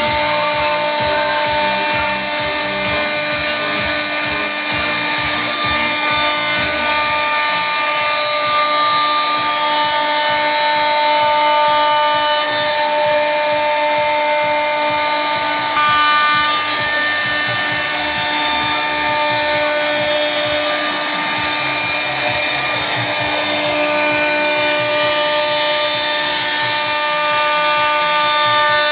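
CNC router spindle running with a steady high whine made of several held tones, its bit cutting long grooves into a fibreboard panel.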